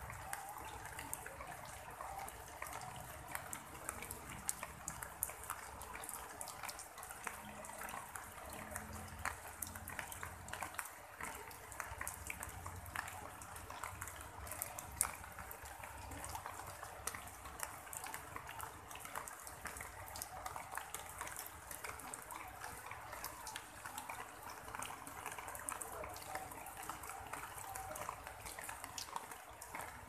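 Light rain: many small drops pattering steadily and irregularly on broad plant leaves and wet ground.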